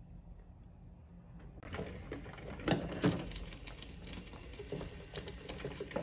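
Faint room hum, then about a second and a half in a drip coffee maker is heard brewing: a steady hiss with irregular sputtering pops and gurgles as hot water is pushed through.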